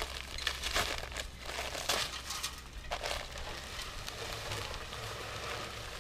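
A paper sack of concrete mix crinkling and rustling in short irregular bursts as it is handled and emptied into a cement mixer's drum, over a low steady hum.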